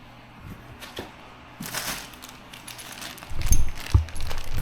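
Cardboard packaging of a boxed garbage disposal being opened and handled: a few light clicks and rustles, then heavier thumps and rustling in the last second or so.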